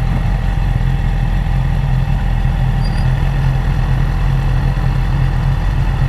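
BMW S1000RR's inline-four engine idling steadily at a standstill, with no revving.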